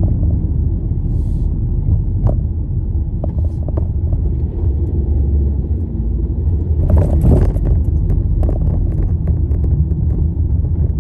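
Car driving, heard from inside the cabin: a steady low road-and-engine rumble, with a few light clicks and a brief louder surge about seven seconds in.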